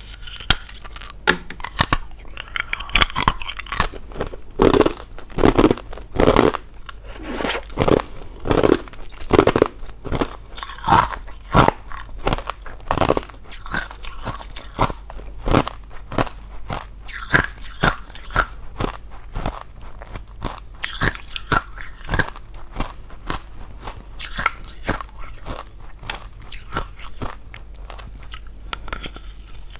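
Close-miked crunching of a thin hollow ice shell being bitten and chewed: sharp cracks as the ice breaks, then repeated crunches at about one or two a second, loudest in the first half.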